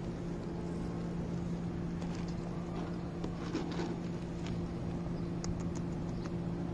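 A steady low mechanical hum, like an idling engine or machine, with faint scattered ticks.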